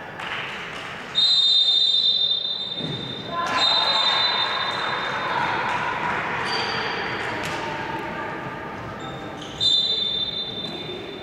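Referee's whistle blown three times: a long blast about a second in, another a couple of seconds later, and a shorter one near the end. A handball bouncing on the court and players' voices run underneath.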